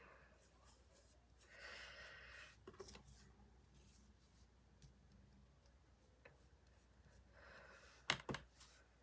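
Faint soft scrubbing of an ink blending tool rubbed over cardstock in a few short passes. Near the end come two sharp plastic clicks from an ink pad case being handled.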